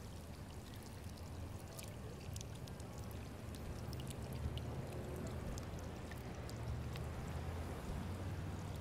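Tiered stone garden fountain running, its water splashing and trickling steadily over a low, steady rumble.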